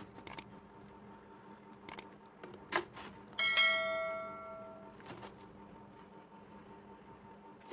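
A few sharp mouse-click sound effects, then a bright notification-bell chime about three and a half seconds in that rings on and fades out over about a second and a half.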